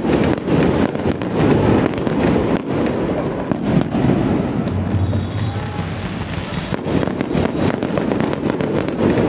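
Fireworks going off: a dense, continuous run of pops and crackles from aerial shells bursting above ground fountains.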